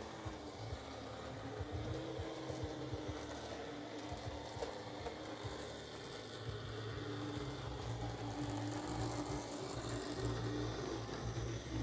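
N-scale model railbus and its trailer running along the track: the small electric motor whirring, its pitch wavering slightly as the speed changes, over a steady low hum.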